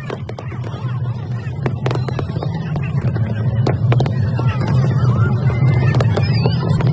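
Fireworks display: a steady low rumble of bursting shells with many sharp cracks, growing louder over the first few seconds, over the voices of a crowd.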